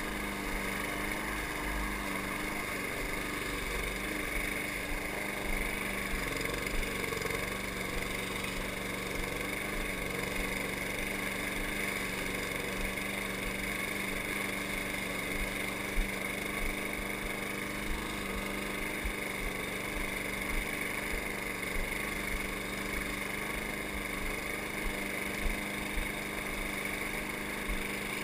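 Walk-behind gas lawn mower's small engine running steadily while it cuts grass, one even unbroken note, with a few brief sharp ticks over it.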